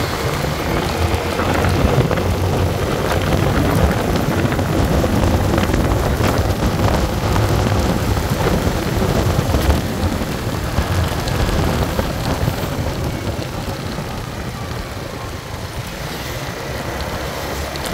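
Wind buffeting the microphone while riding at speed, around 70 km/h, a loud rushing rumble with road and engine noise underneath. It eases slightly in the last few seconds.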